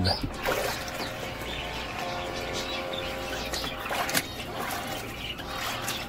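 Submersible pump in a bucket of Dettol-and-water solution running with a faint steady whine, used to spray the tiles. Birds chirp in the background.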